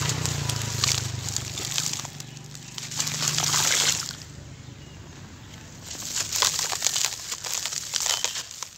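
Dry, gritty charcoal crumbs and powder crumbled by hand and dropped onto wet charcoal paste in a plastic tub. It is a hissing patter of falling grit with soft wet sloshing, coming in several rushes with a quieter stretch in the middle.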